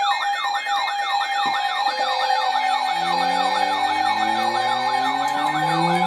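Electronic siren in a fast yelp, sweeping up and down about two to three times a second over a steady tone. From about three seconds in, several lower siren tones slowly rise beneath it.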